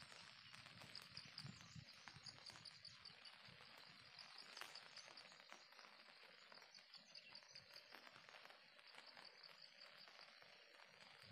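Near silence with faint insect chirping: a steady train of high, evenly spaced pulses over a faint hiss.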